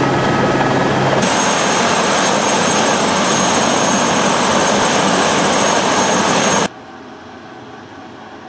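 Aérospatiale AS350 Écureuil helicopter running on the ground with its main rotor turning: a loud, steady turbine and rotor noise with a high whine over it. About a second in the sound shifts from inside the cabin to outside beside the helicopter, and near the end it drops abruptly to a faint steady hiss.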